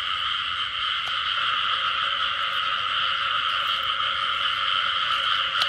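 Dense chorus of many frogs calling at once, a steady unbroken din. It is the breeding chorus of frogs gathered after the season's first rain.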